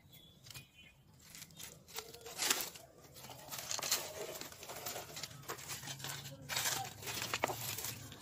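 Dry leaves, twigs and plant stems rustling as they are handled, in irregular bursts that get louder about two seconds in.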